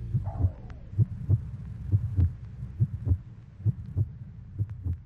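Heartbeat sound, a slow double thump (lub-dub) repeating about once a second and fading toward the end.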